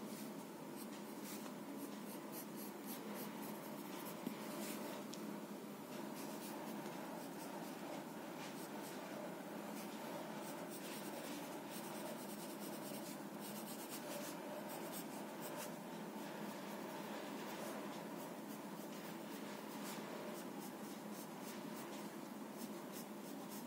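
Apsara graphite sketch pencil scratching across drawing paper in many short, repeated strokes as lines are drawn and shaded, over a faint steady room hum.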